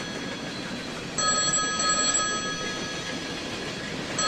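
Telephone ringing with a trilling bell ring: one ring of about two seconds starts about a second in, and the next starts right at the end, in a steady ring-pause rhythm.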